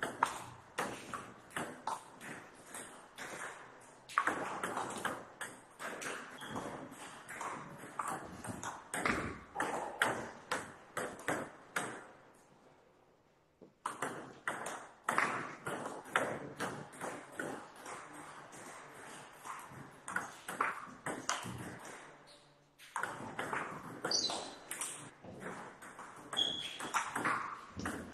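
Table tennis ball clicking back and forth off the bats and the table in a fast rally, one player's penhold bat faced with long-pips rubber. About halfway through the clicks stop for a moment, then start again.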